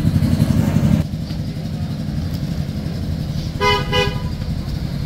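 Street traffic: a motor vehicle's horn gives two short toots about three and a half seconds in, over a steady rumble of engines. A louder engine rumble close by drops away about a second in.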